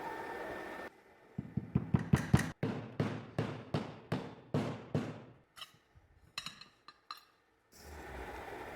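A run of about a dozen sharp metal knocks, like hammer blows on a metal part, each ringing briefly; the last few are fainter and more spaced out.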